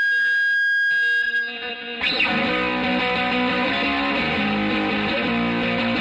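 Distorted electric guitar (a Fender Jaguar) played through an Electro-Harmonix Polyflange in Filter Matrix mode and a Tech 21 SansAmp into a Fender Twin Reverb amp. A held chord rings and fades, then about two seconds in a new chord is struck and left to ring, its tone wavering through the pedal's filtering.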